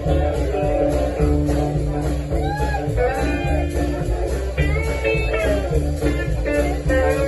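Live blues band playing, a guitar lead with bent notes over a steady bass and drum beat.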